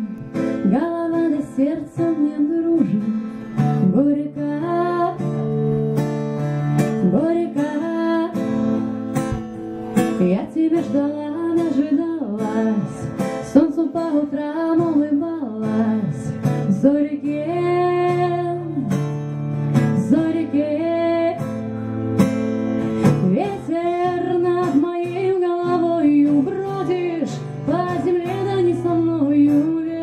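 A woman sings a melody while strumming chords on a steel-string acoustic guitar, both picked up through a stage microphone.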